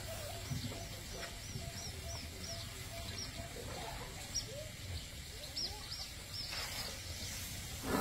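Birds singing in quick series of repeated high chirps. Near the end comes a short breathy blast of air: an elephant blowing through its trunk at close range.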